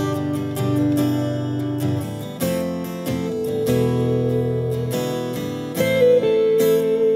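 Music led by strummed acoustic guitar, with sustained pitched notes and chords.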